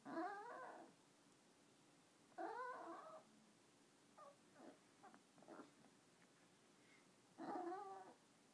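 Chihuahua 'talking': three drawn-out vocal calls with a wavering pitch, each under a second long, with a few short, fainter calls between the second and the third.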